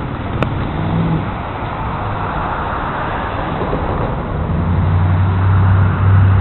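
An engine running with a steady low hum, growing louder in the second half.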